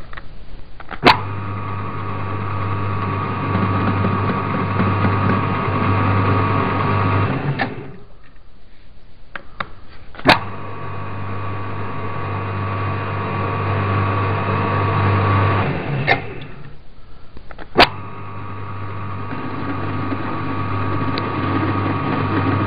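Hobbymat hobby lathe's motor and gear train running under power while thread cutting, with a steady hum and a higher whine. It runs three times for about six seconds each, stopping between runs and starting again with a sharp click of the switch; the chuck is reversed for the back-feed, with the thread-cutting feed left engaged throughout.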